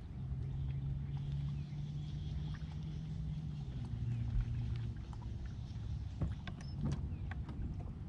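A boat's motor humming steadily, its pitch stepping down slightly about four seconds in, with a few sharp clicks and knocks near the end.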